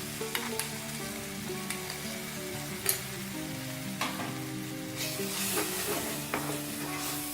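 Onion-tomato masala with freshly added ginger-garlic paste frying in oil in a pan, stirred with a spoon that clicks against the pan several times. The sizzle grows louder about five seconds in.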